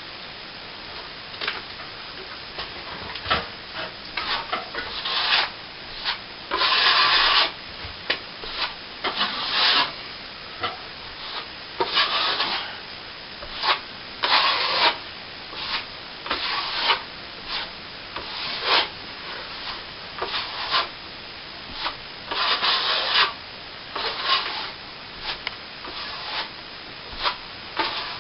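Plasterer's steel trowel scraping back nearly set cornice cement on a plasterboard ceiling patch, in many uneven strokes, some short and some about a second long.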